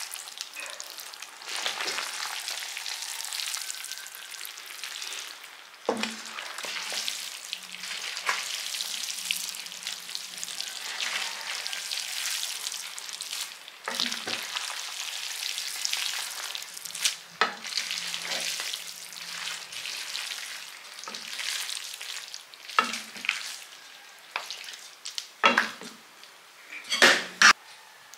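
Spaghetti in tomato sauce sizzling in a hot pan as it is tossed and stirred with wooden spoons: a steady hiss, with scattered knocks of the spoons against the pan, the loudest few near the end.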